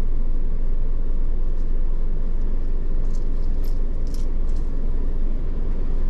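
Steady low rumble of a car, heard from inside the cabin, with a few faint ticks about halfway through.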